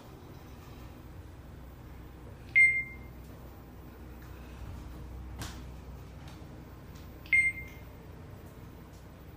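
Elevator car's electronic signal beeping twice, about five seconds apart, over the low steady hum of the traction elevator car travelling between floors; these are typical floor-passing tones. A single sharp click sounds between the two beeps.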